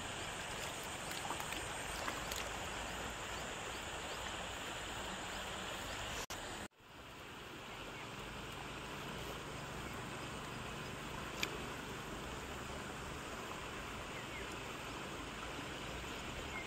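Steady outdoor ambience by a slow stream, an even hiss with no distinct events, broken by a brief dropout about six and a half seconds in.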